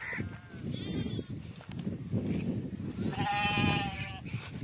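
A grazing flock bleating. A few short, faint bleats come in the first second, then one loud, long bleat of about a second starting about three seconds in, over low rustling noise.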